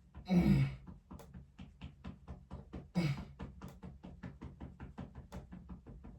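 A hand slapping rhythmically, a steady run of short knocks about five a second. Two louder sounds with a falling pitch break in about half a second in and again at three seconds.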